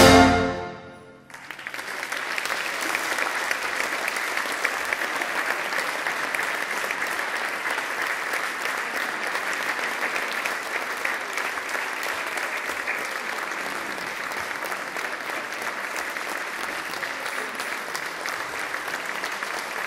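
A brass-heavy wind band's final full chord dies away in the first second, then steady applause from the audience follows.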